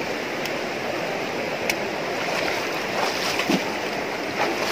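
Shallow river water rushing over rocks: a steady wash of flowing water.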